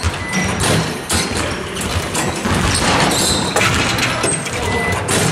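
Basketballs bouncing and sneakers squeaking on a gym floor, with many knocks and short squeaks ringing around a large sports hall.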